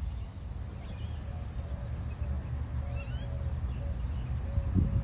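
Birds calling outdoors: a short low note repeated every few tenths of a second, and a couple of brief rising chirps about three seconds in, over a steady low rumble of outdoor noise.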